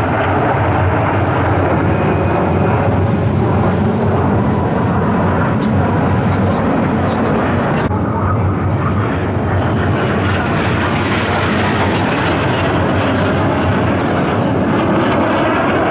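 Aermacchi MB-339 PAN jet trainers flying overhead, their Rolls-Royce Viper turbojets making a loud, steady rushing noise. About eight seconds in, the sound changes abruptly and loses its hiss.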